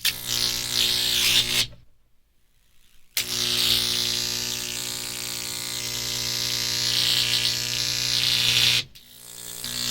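High-voltage electric arc buzzing and crackling with a steady low electrical hum under a hiss. It cuts off sharply under two seconds in and restarts after a silence of just over a second. It then runs steadily for about five and a half seconds, stops abruptly near the end, and builds again.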